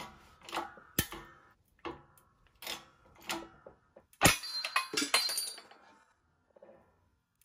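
Shop press forcing a needle bearing out of an Eaton supercharger's rear housing: a run of creaks and clicks as it loads up, then about four seconds in a sharp bang as the bearing lets go, followed by metal clattering and ringing as the bearing and pressing plate fly off.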